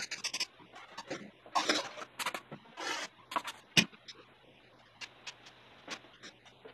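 Trowel scraping wet plaster in a plastic bucket: a few short irregular scrapes, one sharp knock against the bucket just before four seconds in, then a few light clicks.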